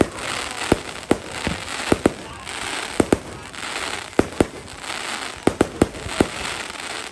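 Fireworks display: aerial shells bursting with sharp bangs at irregular intervals, a quick run of several near the end, over a continuous crackling hiss.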